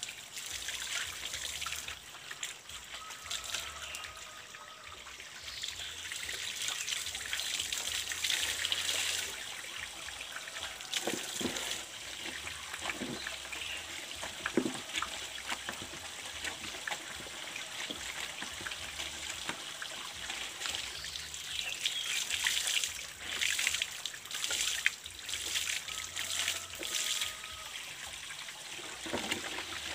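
Water trickling and splashing from the mouth of a PVC pipe while cloth baby nappies are hand-scrubbed under the flow, with irregular wet splashes and slaps.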